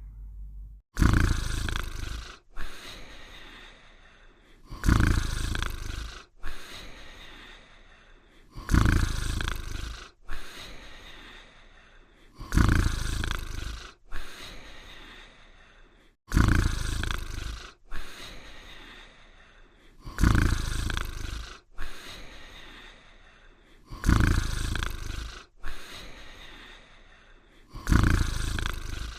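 Cartoon snoring sound effect repeating evenly about every four seconds: each time a loud, low snore that starts suddenly and fades, followed about a second and a half later by a shorter, softer breath.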